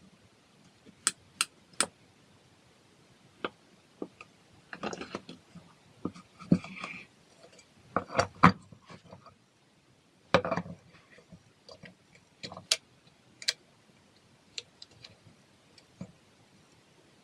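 Small hard objects being handled: scattered sharp clicks and taps, with a few short bouts of rattling in the middle.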